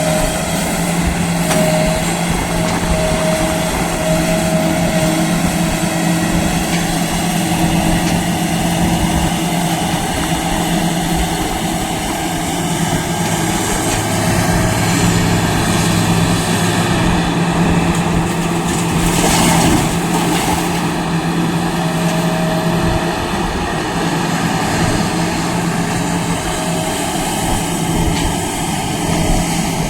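Heavy diesel engine of an excavator or dump truck running steadily, a low drone with a higher whine that fades in and out, and a deeper tone joining for a few seconds midway.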